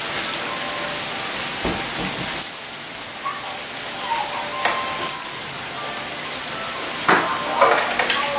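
Steady rain falling, a constant hiss with a few sharper taps from drops striking hard surfaces.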